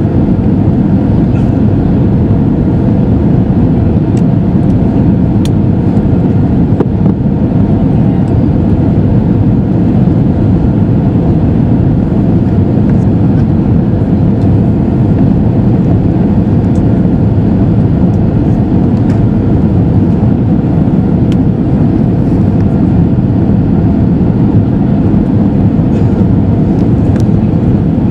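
Steady cabin noise of an Airbus A320-214 in flight: the drone of its CFM56-5B engines and the rush of air past the fuselage, heard inside the cabin over the wing. It is a deep, even roar with a faint steady hum riding on it.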